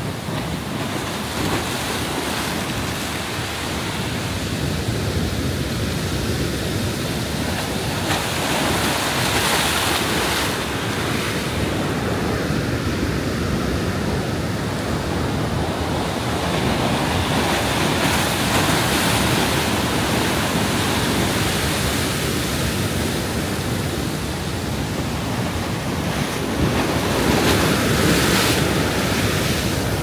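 Storm surf on the Black Sea breaking and washing against a pier's pilings, a steady rush that swells louder about three times as bigger waves hit, with wind buffeting the microphone.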